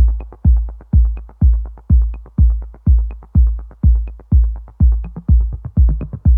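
Electronic dance music: a heavy kick drum on every beat, about two beats a second, with a light high tick about once a second.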